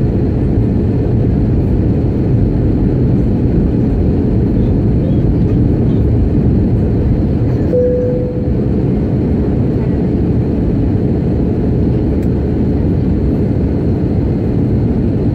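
Steady engine and airflow rumble inside the cabin of an Airbus A320 airliner in descent. A short tone comes in about halfway through.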